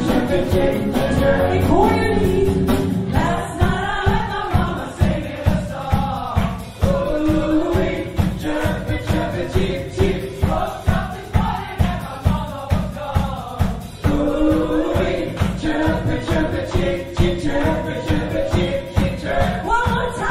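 Live pop band playing, with several voices singing together over acoustic guitar and a steady beat of about two strokes a second. The beat fits the audience clapping along.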